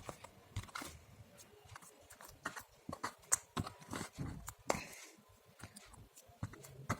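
Homemade glue-and-boric-acid slime being mixed, giving irregular sticky clicks and little squelches, a couple of them louder in the middle; it sounds sticky.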